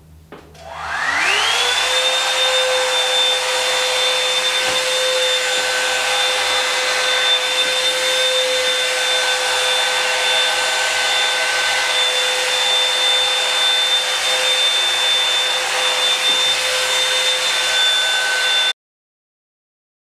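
Revlon One-Step blow-dryer brush switched on, its motor whining up to speed over about a second, then running steadily with a high whine over a rush of air. The sound cuts off suddenly near the end.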